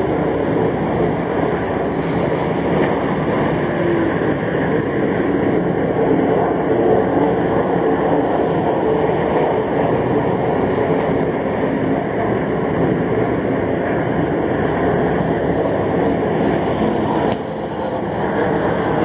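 Steady roar of a field of stock cars racing around the speedway, many engines blending into one continuous drone.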